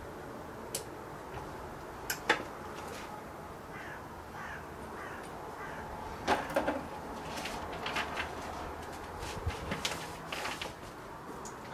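A crow cawing in a short run of repeated calls near the middle. Sharp clicks and rustling come from plastic parts and paper being handled.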